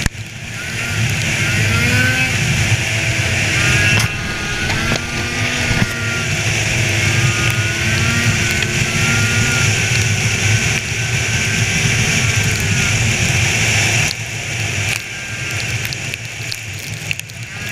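Polaris snowmobile engine running at trail speed, its pitch rising and falling with the throttle, over a steady rush of wind. The engine eases off about fourteen seconds in.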